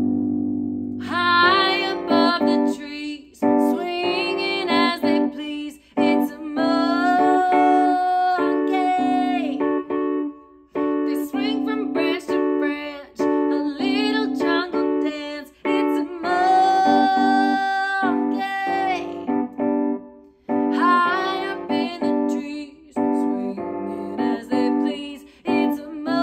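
A piano with a woman singing a children's song. The piano chord sounds first and the voice comes in about a second in, with several long held notes.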